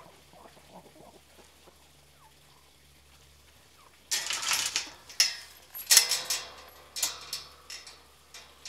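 A metal-framed wire-mesh gate rattling and clanking as it is swung shut, with a loud rattle about four seconds in, a sharper clang with some metallic ringing about two seconds later, then a few smaller knocks. Faint chicken clucks are heard before it.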